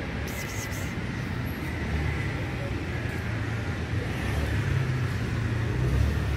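Steady low background rumble, growing slightly louder toward the end, with a brief hiss just after the start.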